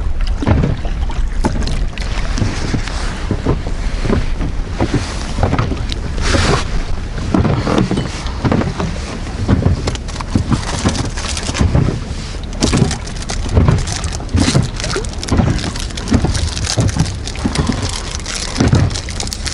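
Gusty wind buffeting the microphone in irregular surges, over small waves lapping against an inflatable boat.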